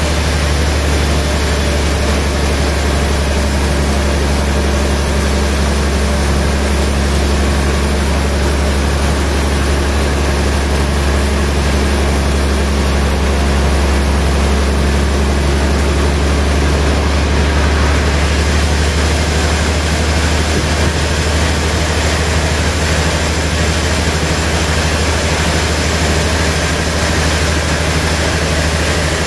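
Large log band saw running steadily, a constant low hum under an even wash of noise that does not change throughout.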